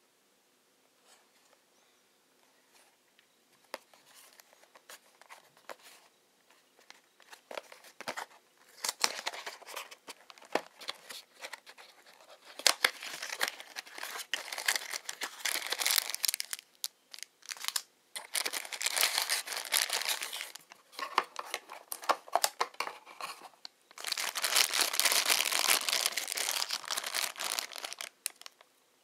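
A cardboard toy box being opened by hand, starting with a few faint clicks and taps. Bursts of scraping, tearing and rustling follow and grow louder. Near the end comes a long stretch of crinkling from the clear plastic bag sealed around the toy belt.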